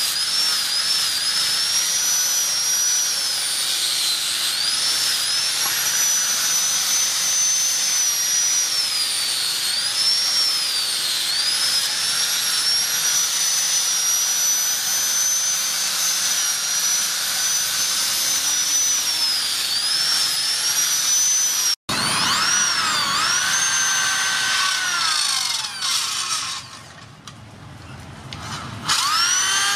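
Angle grinder with a sanding disc running against a wooden block, its high motor whine dipping and recovering in pitch as it is pressed into the wood. About two-thirds of the way through, it cuts suddenly to an electric drill boring into wood, revving up and down. The drill pauses briefly and starts again near the end.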